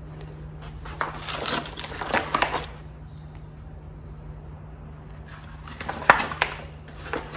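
Crinkling and rustling of vacuum-sealed plastic packaging around frozen steaks as they are handled, in two spells, with one sharp knock about six seconds in. A steady low hum runs underneath.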